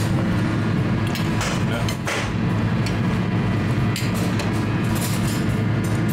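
Background music, with a few sharp clinks at irregular moments over it.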